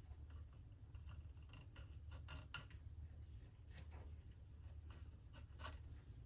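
Faint, irregular small clicks and ticks from the plastic gear mechanism of an opened cassette data recorder being worked by hand, over a low steady hum.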